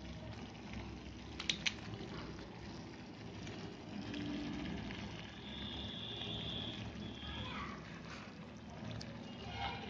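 Thick tomato pizza sauce simmering and bubbling in a hot kadai. There are a couple of light clicks about a second and a half in.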